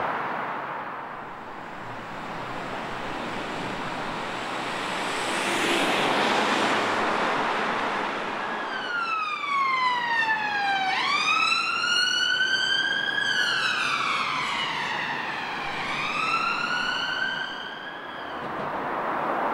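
Road traffic noise, then from about nine seconds in an emergency vehicle's siren wailing in slow up-and-down sweeps of two to three seconds each, fading near the end.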